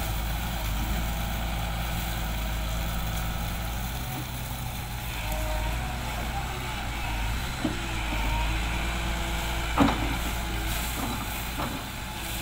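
Volvo EW145B wheeled excavator's diesel engine running steadily under load while the boom and bucket are worked, with a few sharp knocks, the loudest about ten seconds in.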